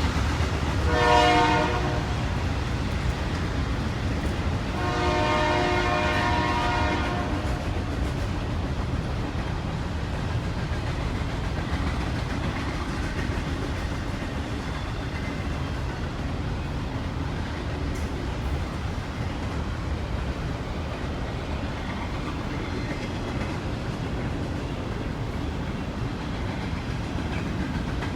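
A train going by, its rumble and wheel clatter continuous; the locomotive horn sounds twice, a short blast about a second in and a longer one about five seconds in.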